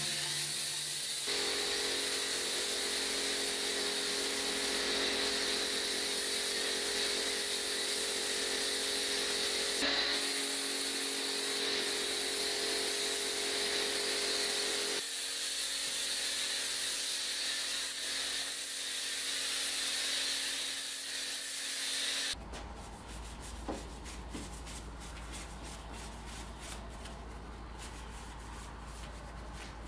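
Pressure washer spraying water and foam onto a car: a steady hiss with the pump's hum under it. About two-thirds of the way through it cuts off suddenly, and close, irregular rubbing of a wash mitt scrubbing soapy bodywork follows.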